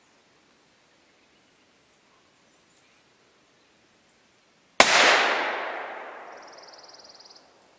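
A single rifle shot from a scoped hunting rifle about five seconds in, a sharp crack whose echo through the woods dies away over about two and a half seconds.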